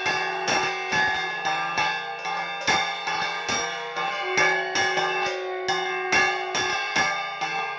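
Bells and cymbals struck rapidly, several strikes a second, with ringing metallic tones held between the strikes.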